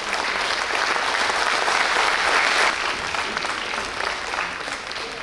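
Audience applauding, many hands clapping at once; the clapping swells about two seconds in and dies away near the end.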